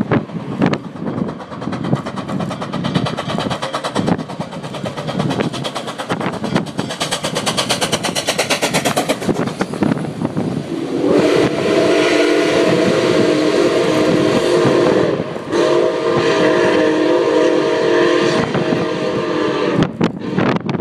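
Nickel Plate Road #765, a Berkshire 2-8-4 steam locomotive, passes close beneath with its exhaust beating. About eleven seconds in it gives two long blasts on its steam whistle, several notes sounding at once, with a short break between them. The first blast is the longer of the two.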